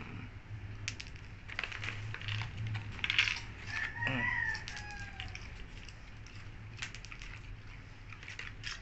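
Dogs crunching popcorn: a run of short, dry, crackly clicks, heaviest in the first half. A rooster crows once, briefly, about four seconds in.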